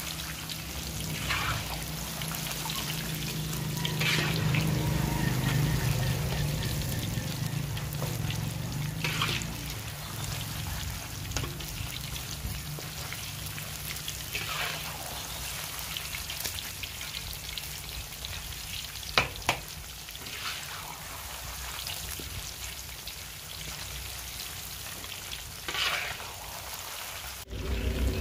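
Chicken pakora pieces deep-frying in hot oil in a large karahi: a steady sizzle, with a few short scrapes of a perforated metal skimmer turning the pieces.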